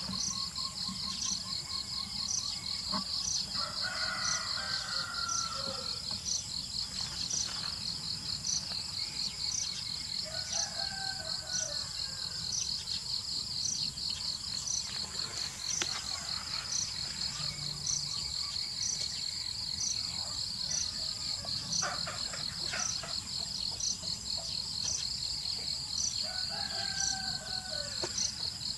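Steady high-pitched insect chorus with a regular pulsing chirp running under it, and a few bird calls breaking in about four seconds in, around ten seconds in, and near the end.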